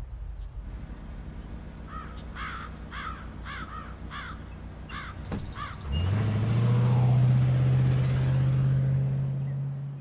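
A bird cawing about seven times in a row, then about six seconds in a low motor-like drone starts with a quick rise in pitch and holds steady.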